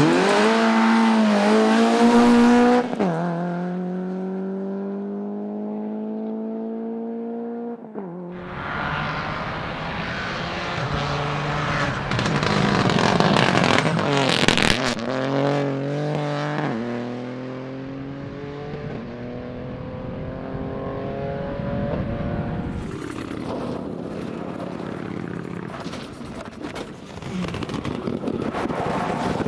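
Rally cars at full speed on a stage. Engine notes climb through the gears and drop at each gear change. One car is loudest about halfway through, where its pitch dips as it passes, and another car builds up near the end.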